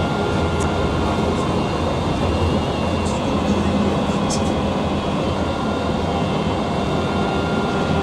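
Kanazawa Seaside Line 1000 series rubber-tyred automated train (set 1011) running, heard from inside the car: steady running noise with a faint jet-like whine from its traction motors, the abnormal motor noise this set is known for. A few short clicks a few seconds in.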